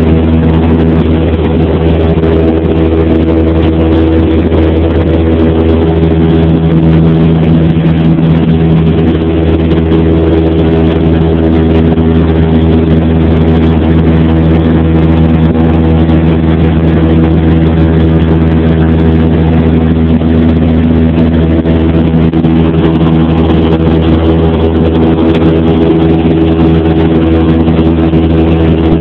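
Cessna 172P's four-cylinder Lycoming engine and propeller running steadily in flight, heard inside the cabin as an even, unchanging drone.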